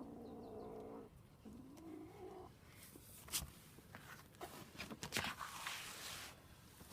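Domestic cat growling and yowling: a drawn-out call for about a second, then a shorter wavering one. It is a possessive warning over food that she won't let others near. Rustling and clicking handling noises follow in the second half.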